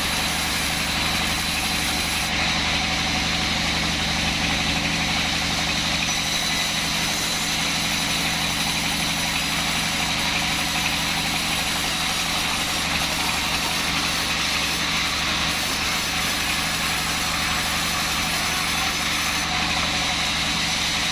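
Band sawmill machine running steadily, an even machine drone with a constant high whine.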